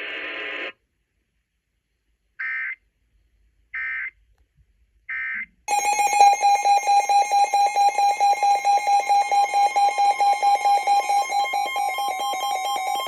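NOAA Weather Radio alert tones: three short bursts of SAME digital data tones, then the steady 1050 Hz warning alarm tone. Over that tone a loud electronic alarm pulses about five times a second, marking an incoming severe thunderstorm warning.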